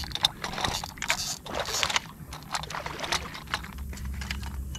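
Spinning fishing reel mounted on a pistol crossbow being cranked to bring in a fish that has just been shot, making a run of irregular clicks and rattles.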